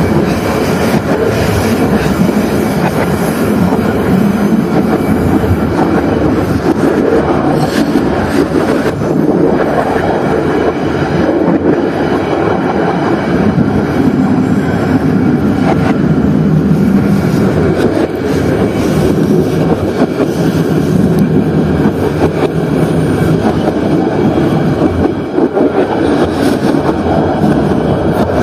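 Diesel-electric locomotive hauling a train at steady running speed: continuous engine drone and the rumble of wheels on the rails, with a few faint wheel clicks, heard from the front of the train.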